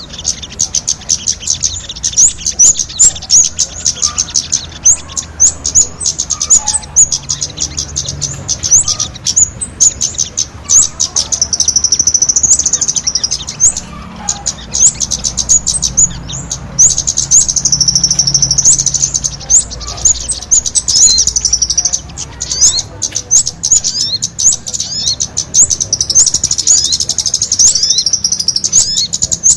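Bird-lure recording of sogon (sunbird) calls combined with kemade calls: a dense, continuous run of very high, rapid chirps, broken by several longer trilling stretches.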